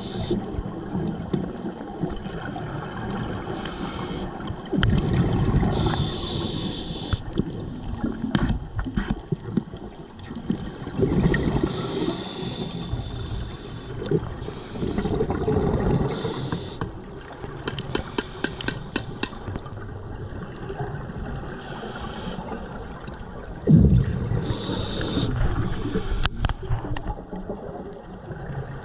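Scuba diver breathing through a regulator underwater: short hissing inhalations alternating with rushing, bubbling exhalations, about four breaths a few seconds apart, with a few faint clicks in between.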